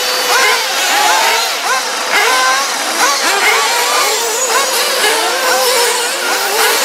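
Several 1/8-scale nitro RC buggy engines revving, their high-pitched whines rising and falling over and over as the cars race, several sweeps a second overlapping.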